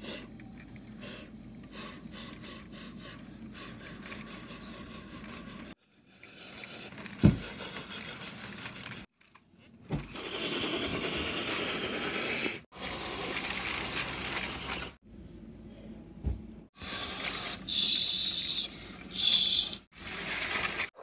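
Lego train on plastic track, heard in several short cut segments: scraping and rubbing noise with a few single clicks, and a loud high hiss near the end.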